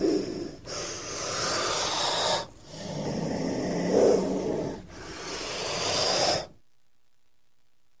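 King cobra hissing: the tail of one hiss, then three long hisses of about two seconds each with short breaks between. The hissing stops suddenly about six and a half seconds in.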